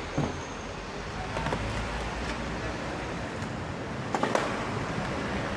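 Steady background noise with a few light clicks and knocks, the loudest a pair about four seconds in.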